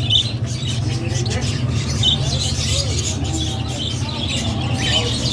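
Many small birds chirping in short, repeated high calls over a steady low hum.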